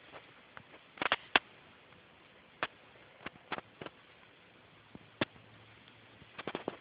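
Scattered sharp clicks and taps: a quick cluster about a second in, single ones through the middle, and another cluster near the end, over a faint steady hiss.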